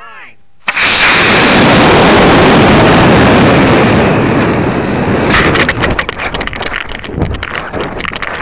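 Estes B6-4 black-powder model rocket motor igniting, heard through a camera strapped to the rocket's side: a sudden, very loud rushing roar that carries on as air rush during the climb and eases slightly. About five seconds in, it gives way to rapid crackling wind buffeting as the rocket tumbles.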